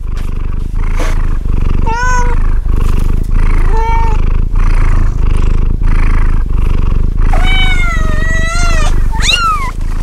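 Domestic cat purring loudly and steadily, with meows on top: short ones about two and four seconds in, a long drawn-out meow from about seven to nine seconds, and a short one right after it.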